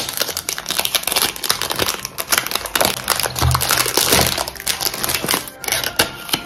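Thin plastic shrink-wrap on a cardboard perfume box crinkling and crackling in a rapid, irregular run as fingers pick at it and peel it away, with a few soft handling thuds.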